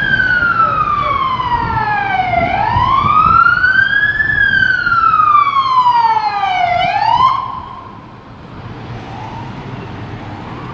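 Emergency vehicle siren in a slow wail, sweeping down, up and down again over about seven seconds, then stopping abruptly. Fainter, shorter siren sweeps continue in the quieter remainder.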